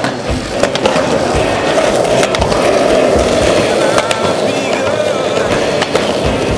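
Skateboard wheels rolling steadily on street pavement, a continuous gritty rumble, with a few sharp clicks scattered through it.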